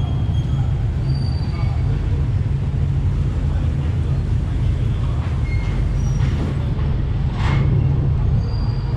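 A docked ferry's engines running with a steady low rumble, under faint chatter of passengers.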